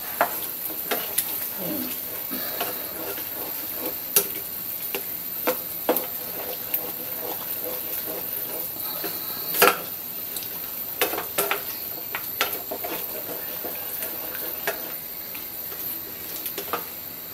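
A spatula stirring chicken pieces in stock in a nonstick frying pan, with scattered scrapes and knocks against the pan, the loudest about ten seconds in. Underneath runs a steady sizzle from the liquid heating in the pan.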